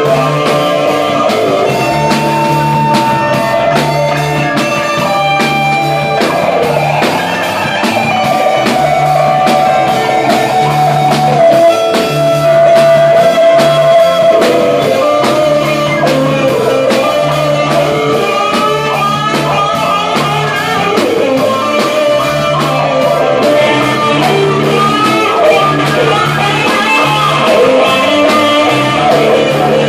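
Live rock-blues band music: an amplified electric guitar plays a lead line of long held, wavering notes over a bass line and drums.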